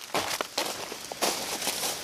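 A few footsteps crunching through dry fallen leaves, irregular crackling steps as a person walks over leaf litter.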